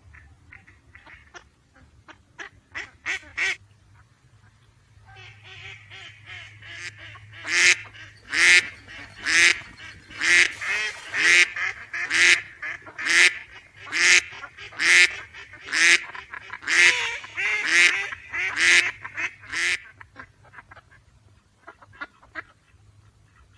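Ducks quacking. A few soft, short quacks come first; from about five seconds in, more birds join and a loud quack comes roughly once a second for about a dozen seconds, then the calls trail off into faint ones near the end.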